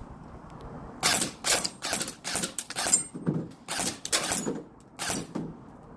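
Elite Force M4 CQB airsoft rifle firing a string of rapid single shots, about three a second, starting about a second in, each a sharp snap.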